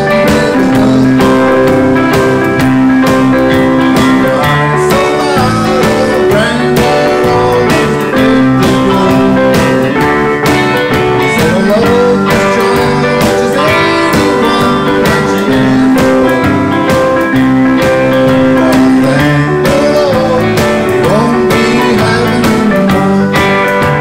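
Live pop-rock band playing at a steady tempo: electric bass, drum kit and electric guitar, with long held notes.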